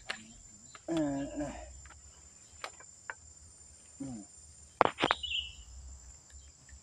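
Steady high-pitched insect buzzing, with a few scattered sharp clicks and one louder snap about five seconds in.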